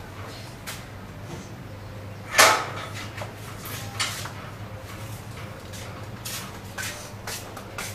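A metal gate being opened, with one loud clank about two and a half seconds in, followed by a few lighter knocks, over a steady low hum.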